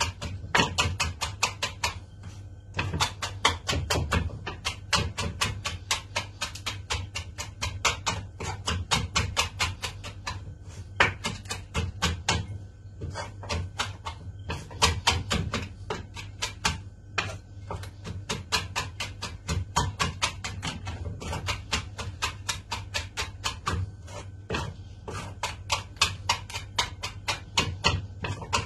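Kitchen knife chopping rapidly on a cutting board, about four to five strokes a second in long runs broken by short pauses, mincing fresh herbs, garlic and lemon peel into a fine trito. A steady low hum runs underneath.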